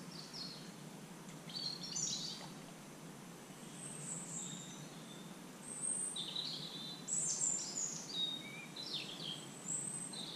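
Small birds chirping and calling: many short, high chirps and trills scattered through, busiest in the second half, over a faint steady background hush.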